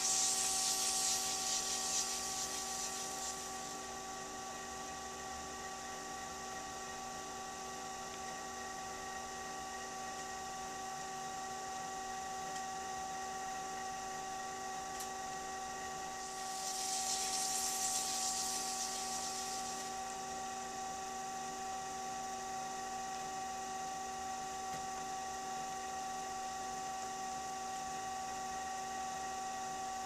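Electric pottery wheel's motor running with a steady hum of several fixed tones while the wheel spins. Twice, near the start and just past halfway, a soft hiss swells for about three seconds over the hum.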